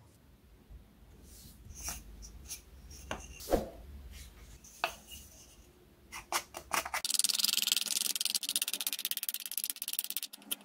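Light taps and clicks of a pencil and pine sticks being handled, then, about seven seconds in, a carving knife shaving the pine in a quick run of rapid scraping strokes.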